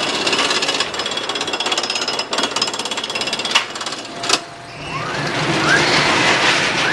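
Small children's roller coaster train clattering rapidly along its steel track, with two sharp clacks about four seconds in. It then settles into a steadier rumble with short high squeals over it.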